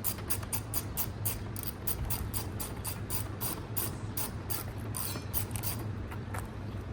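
Ratchet wrench with a 10 mm socket clicking steadily, about five clicks a second, as it backs out a bumper bolt. The clicking thins out and stops near the end.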